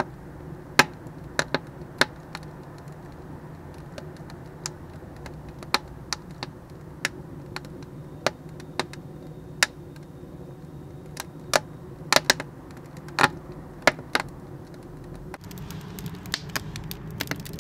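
Small dry construction-timber kindling crackling and snapping as it starts to catch in the firebox of a cast refractory-concrete batchbox rocket burner: sharp irregular snaps about once a second, coming faster near the end, over a steady low rumble.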